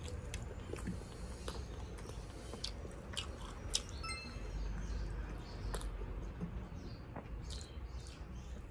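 Close-miked chewing of a mouthful of rice and chicken adobo, with wet mouth clicks scattered throughout and one sharp click just before four seconds in.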